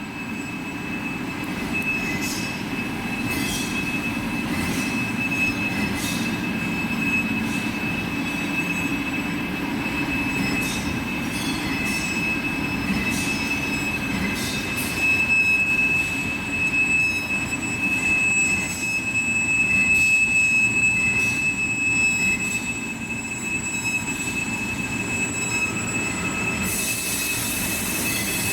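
Machine tool cutting AISI D2 tool steel: a steady high whine over a running hum, with faint ticks, and a hiss coming in near the end.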